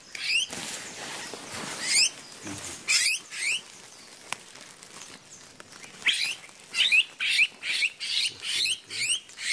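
Caught wild birds giving short, high-pitched squeaking chirps while being handled. A few scattered chirps come first, then a quicker run of them over the last few seconds.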